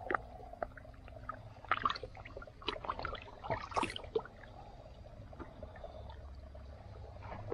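Water sloshing and dripping in scattered small splashes as hands hold and shift a large common carp in a shallow tub of water.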